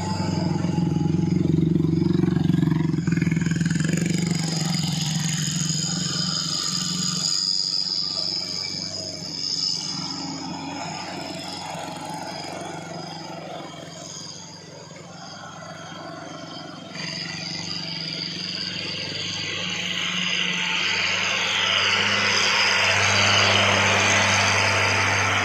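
Heavy diesel trucks labouring up a steep grade as they pass close by, engines pulling hard under load. One truck is loudest over the first few seconds. The sound fades around the middle, and a turbocharged Nissan Diesel (UD) truck builds loud again toward the end.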